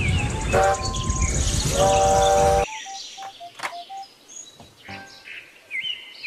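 Steam train running, with a heavy rumble, two blasts of its steam whistle and birds chirping. The sound cuts off suddenly about two and a half seconds in, leaving faint chirps and a few short soft tones.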